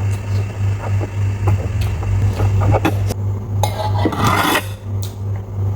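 Cutlery scraping and clicking on a plate, with a longer scrape about four seconds in, over a steady low hum.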